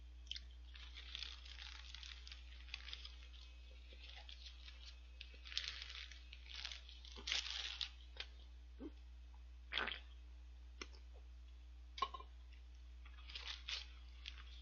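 Chewing and biting into a Lotteria shrimp burger with its fried shrimp patty, close to the microphone: irregular short crunches and wet clicks, the loudest a few seconds into the sound and again about ten seconds in, with rustles of the paper wrapper. A faint steady electrical hum lies underneath.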